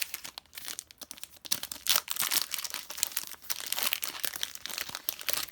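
Foil wrapper of a Pokémon card booster pack being torn open and crinkled by hand: a dense run of irregular crackles that stops at the very end.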